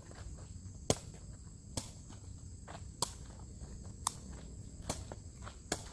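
A takraw ball being kicked back and forth in a circle: about six sharp knocks, roughly one a second. A steady high insect buzz runs underneath.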